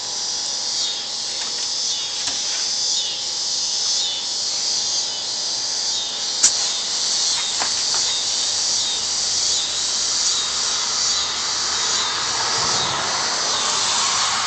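Steady, high-pitched insect chorus, pulsing in slow waves. A single sharp click sounds about six and a half seconds in.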